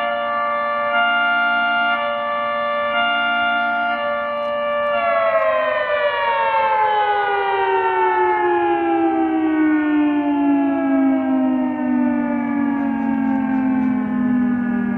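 Federal Signal 3T22 three-tone electromechanical siren sounding a steady chord that swells and fades about once a second. About five seconds in it winds down, the chord falling steadily in pitch.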